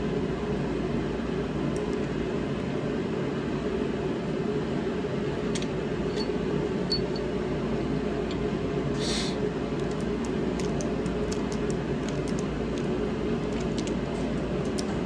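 Steady fan-like hum throughout, with scattered faint clicks and a short hiss about nine seconds in.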